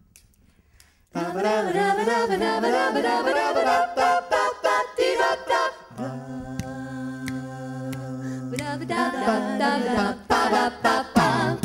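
A cappella vocal group singing without instruments, starting about a second in. A busy passage of several voices moves quickly, a chord is held for about three seconds near the middle, then the moving lines return.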